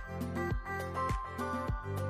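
Background music with a steady beat of about two beats a second over held notes.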